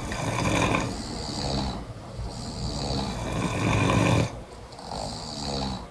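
Heavy snoring of a sleeper with no anti-snoring mouthpiece fitted: three long snores in a row, each about one and a half to two seconds, with short breaks between.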